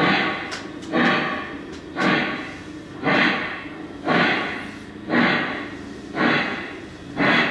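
Lionel Legacy Norfolk & Western Y6b 2-8-8-2 model steam locomotive's sound system playing slow, even steam exhaust chuffs, about one a second.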